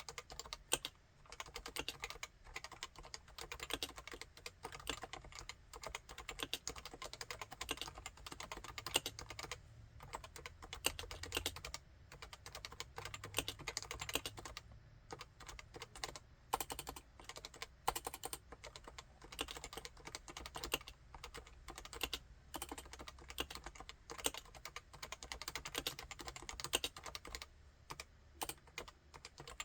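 Typing on a Topre Realforce 87UW tenkeyless keyboard with Topre electrostatic capacitive switches: a steady, dense run of keystrokes with scattered louder strokes.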